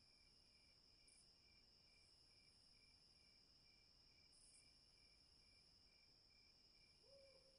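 Faint night crickets: a steady high trill with a softer chirp pulsing about twice a second. A faint lower tone comes in near the end.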